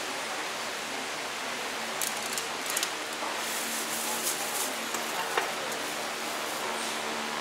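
Steady hiss with a faint low hum from a food stall, with a few light clicks and clatters of utensils and packing about two seconds in and again around four to five seconds in.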